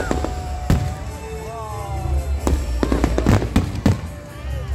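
Aerial firework shells bursting in a display: a bang at the start and another under a second in, then a quick run of bangs between about two and a half and four seconds in, over a low rumble.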